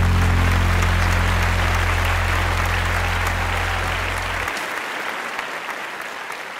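Concert audience applauding at the end of a live country song. The band's last low note rings under the clapping and stops about four and a half seconds in. The applause slowly fades.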